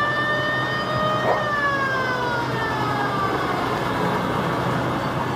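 Vintage six-wheeled military truck driving past close by, its engine running under a high steady whine that falls slowly in pitch as it goes by.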